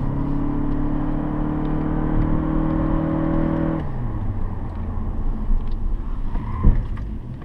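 Toyota Corolla's engine heard from inside the cabin, pulling hard with its pitch creeping slowly up for about four seconds, then dropping away and giving way to road and tyre noise. A single sharp thump comes near the end.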